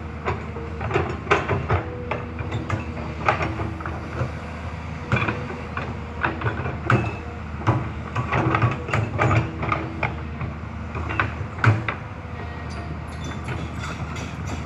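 Hyundai HX210S hydraulic excavator at work: the engine runs steadily under irregular metal clanks and knocks, with a faint whine coming and going.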